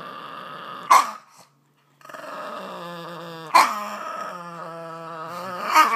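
Boston terrier growling in long, grumbling pitched growls, with three sudden sharp bark-like outbursts: about a second in, midway, and near the end. There is a brief pause after the first outburst.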